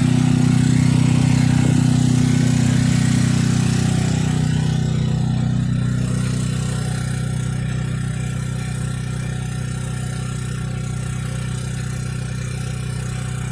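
An engine running steadily at constant speed, getting a little quieter about five seconds in.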